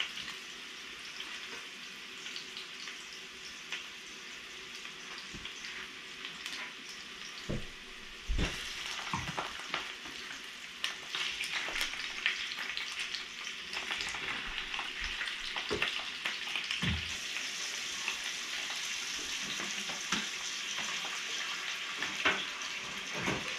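Meatballs sizzling as they fry in an oiled cast iron skillet. The steady hiss grows louder about halfway through as more pieces go into the pan, and again a few seconds later. A few light knocks sound as pieces are set down in the pan.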